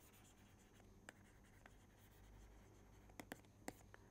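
Faint taps and light scratching of a stylus writing on a pen tablet, with a quick cluster of sharp ticks near the end, over quiet room tone.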